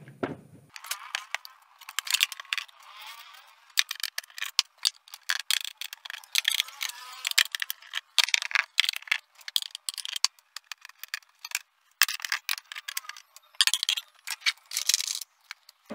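Hand tools and fingers working on the plastic back cover of an LED TV: irregular clicking, tapping, scraping and rattling of a screwdriver against plastic and screws.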